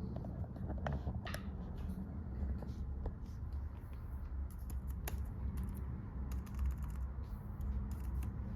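Scattered light clicks and taps from a laptop being handled, thickening from about five to seven seconds in, over a low steady hum.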